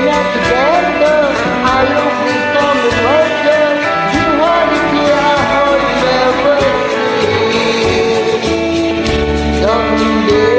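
Music: a solo singer's voice over a karaoke backing track.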